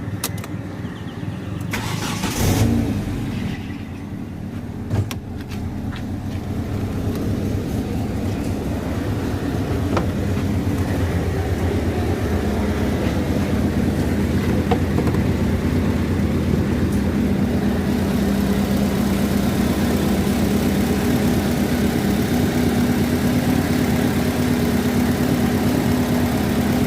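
Rebuilt MIVEC four-cylinder engine in a Proton Wira, a short burst about two seconds in, then running steadily at idle. It grows a little louder over the first ten seconds or so, then holds steady.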